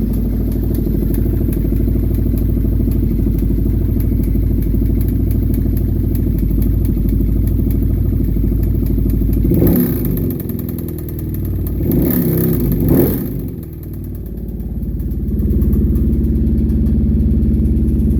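Kawasaki Brute Force 750's V-twin engine idling with a rapid click-tick rattle, blipped twice briefly about halfway through, then settling back to idle. The rattle is the sign of a blown crankshaft bearing.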